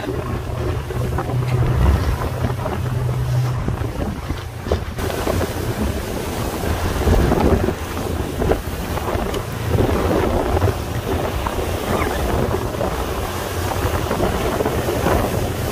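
Wind buffeting the microphone on a moving tour boat, over a steady low engine hum and the wash of sea water, with gusts swelling and easing.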